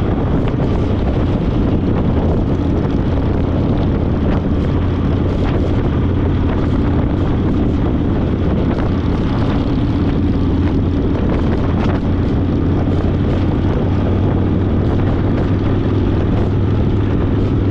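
Harley-Davidson Fat Boy's V-twin engine running steadily at cruising speed, with wind rushing over the microphone.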